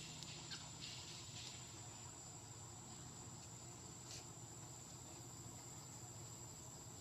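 Steady high-pitched drone of forest insects, with a few faint clicks in the first second and a half and one more about four seconds in.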